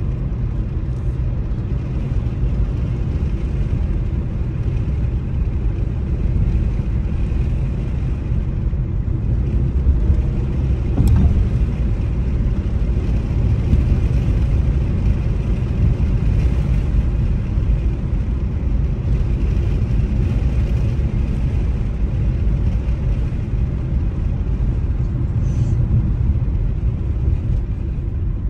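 A car driving along a paved road, with the steady low rumble of tyres and engine. A single brief click comes about eleven seconds in.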